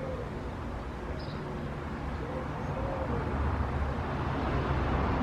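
Low, steady outdoor background rumble that grows gradually louder toward the end.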